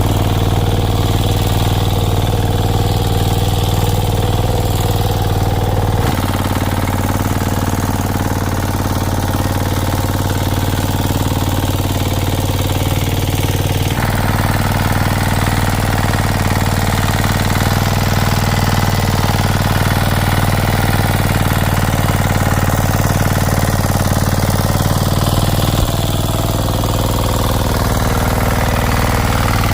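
A small engine running steadily at an even speed, with a strong low hum. It shifts abruptly a few times as the footage is cut together.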